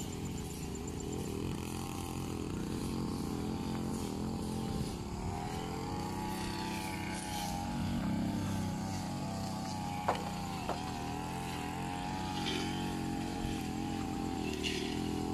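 A small engine running steadily, its pitch dipping and rising briefly partway through, with two short clicks about ten seconds in.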